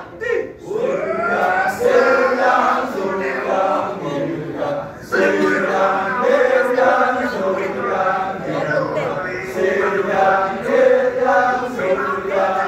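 Balinese kecak chant: a chorus of men chanting together in a held, melodic line with sliding pitches. It breaks off briefly about five seconds in, then resumes.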